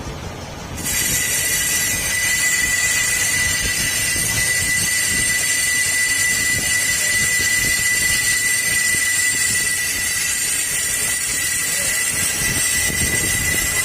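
Valve seat cutting tool running in a cylinder head: a steady high whine with a hiss, starting about a second in and holding steady.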